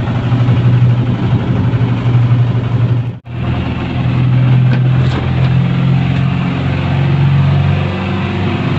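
Lifeboat engine running steadily, heard from inside the enclosed hull as a loud, low hum. The sound briefly cuts out about three seconds in, then carries on.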